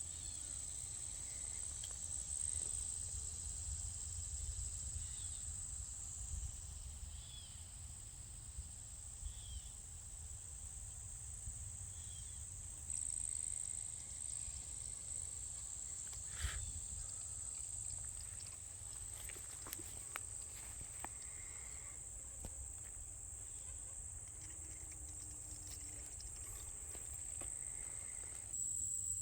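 A steady, high-pitched insect chorus of trilling crickets or katydids, with a low rumble underneath and a single sharp click about halfway through.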